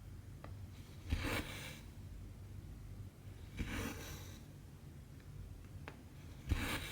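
Embroidery thread pulled through cross-stitch fabric, a short rasping swish three times about two and a half seconds apart, with faint ticks of the needle between.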